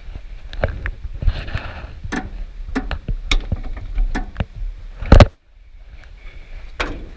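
Irregular clicks and knocks of hands and tools working on a machine, with one loud thump about five seconds in, over a low rumble.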